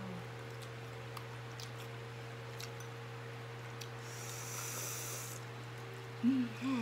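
People eating noodles from ceramic bowls with forks: faint clicks of forks on the bowls, a hissing slurp about four seconds in, and short hummed 'mm' sounds near the end, over a steady low hum.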